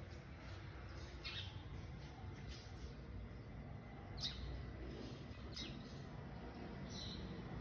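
Small birds chirping: several short, high chirps at irregular intervals a second or more apart.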